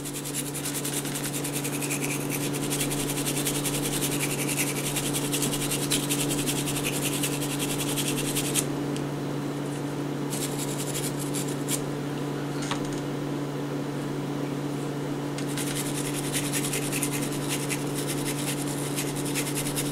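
Gun-cleaning brush wet with Hoppe's solvent scrubbing the outside of a revolver cylinder in rapid back-and-forth strokes, letting up briefly about nine seconds in. A steady low electrical hum runs underneath.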